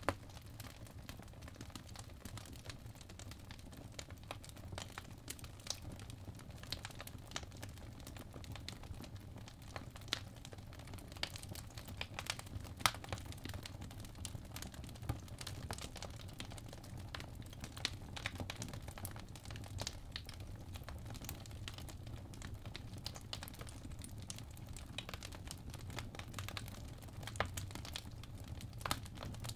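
Crackling-fireplace ambience: faint, irregular crackles and pops over a low steady rumble.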